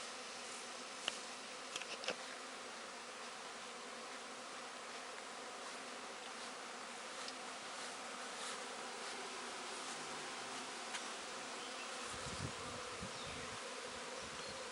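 Honeybee swarm buzzing: a steady hum of many bees, with a few small clicks about one to two seconds in.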